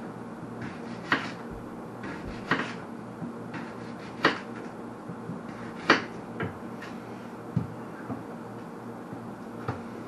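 Kitchen knife cutting an onion on a cutting board: irregular sharp knocks of the blade striking the board, about one every second or so, over a steady low hum.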